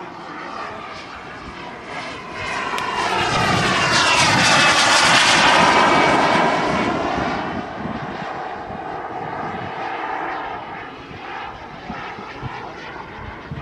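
Model turbine jet engine on a radio-controlled T-45 Goshawk, a whine and rush of air that swells to a loud peak about four to six seconds in and then fades, as the jet makes a low pass.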